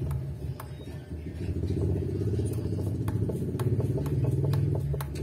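A steady low engine drone runs under light, scattered clicks of a screwdriver backing out the screws of an electric guitar's neck plate.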